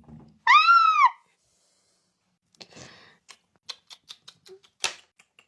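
A person's short high-pitched squeal that rises then falls, followed a couple of seconds later by a run of light clicks and scratchy noises.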